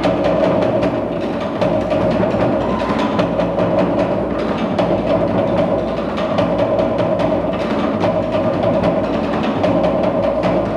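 Tahitian drum ensemble playing a fast, driving dance rhythm, with rapid wooden knocking from slit-log drums over skin drums. A steady mid-pitched hum runs underneath.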